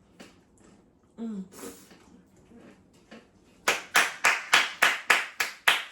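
A person clapping their hands in a quick, even rhythm of about three to four claps a second, starting a little past halfway. Before it there are a short hum and small clicks of eating.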